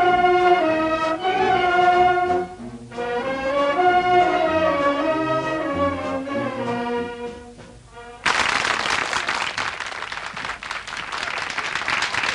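Brass band playing a melody that ends about eight seconds in, followed by audience applause.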